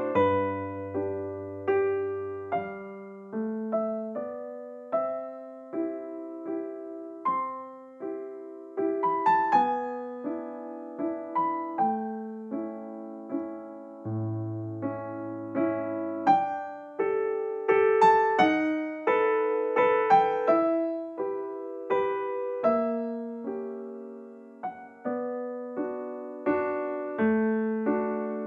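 Background music: a solo electric piano playing a slow melody of separate struck notes over held bass notes.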